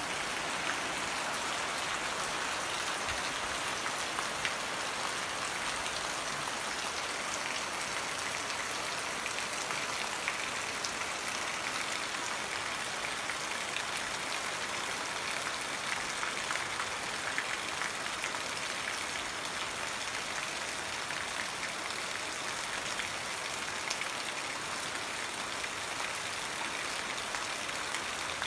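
Steady rain falling, a continuous even hiss with many small drop ticks.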